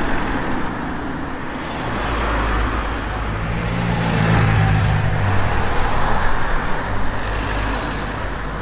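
Road traffic: motor vehicle engines and tyres on the road, with a low engine hum that builds to its loudest about halfway through as a vehicle passes close, then eases off.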